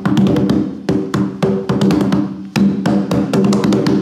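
A watermelon-shaped hand drum beaten with the palms in a quick, uneven run of sharp hits, each with a short pitched ring.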